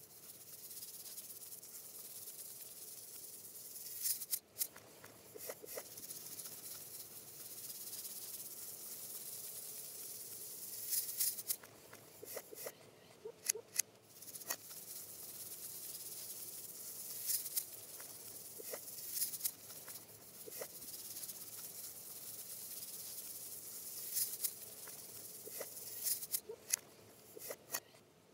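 A steady high hiss with sharp clicks and short rattling swells at uneven intervals.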